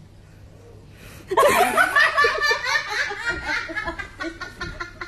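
A person bursts out laughing about a second in: a loud laugh that runs on in quick repeated bursts and slowly tapers off.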